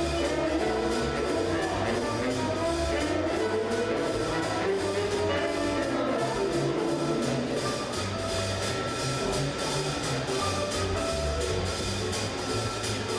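Instrumental band music with a steady drum beat and a bass line under sustained melody notes.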